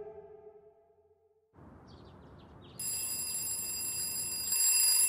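A sustained music chord fades away, and a quiet morning ambience follows with a few short bird chirps. About three seconds in, an alarm clock starts ringing with a loud, steady, high-pitched tone.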